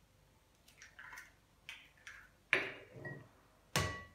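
Hen's eggs being cracked on the rim of a ceramic mixing bowl: two sharp knocks, the second about a second after the first and ringing briefly off the bowl, with softer crackles of shell being broken open between them.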